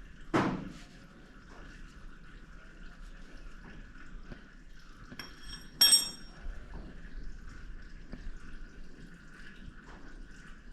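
Metal being handled and set down: a clatter about half a second in and a sharp, ringing metallic clink about six seconds in, with small knocks between, over a faint steady hum.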